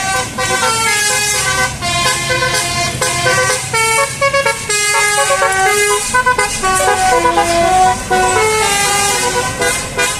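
Bus 'basuri' telolet air horn playing a melody, with pitched horn notes stepping up and down in quick runs over a steady low hum.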